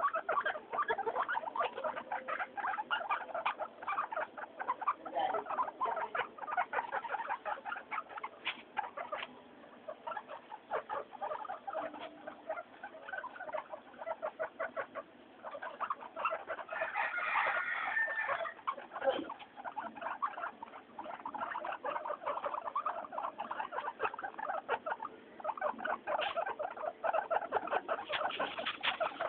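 Guinea pigs making a constant chatter of short, rapid squeaks, with a louder flurry about two-thirds of the way through.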